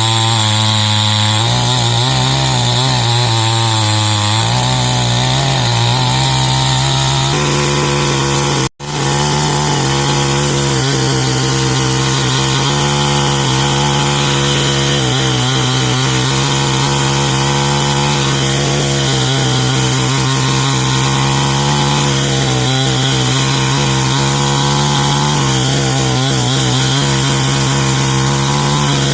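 Chainsaw running and cutting wood, its engine note wavering over the first few seconds and then holding steady. The sound cuts out for an instant about nine seconds in.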